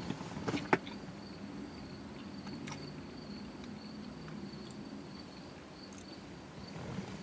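Insects outside trilling in a steady, high, finely pulsing tone, with a sharp click just under a second in.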